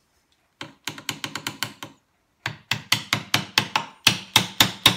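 Round mallet tapping a chisel to chop the waste out of half-blind dovetail sockets in a vise-held board. There are two runs of quick, light blows, several a second, with a short pause about two seconds in, and the second run grows louder.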